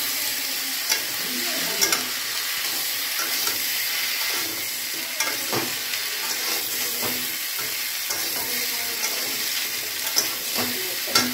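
Chopped pumpkin and vegetables sizzling in hot oil in a steel kadai while a metal spatula stirs and turns them. The spatula's scrapes and clinks against the pan come every second or two over the steady sizzle, as the mixture is fried down (kosha).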